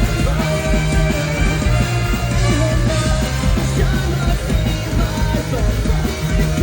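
Live ska-punk band playing loud: a fast drum beat under guitars and bass, with held horn-like notes.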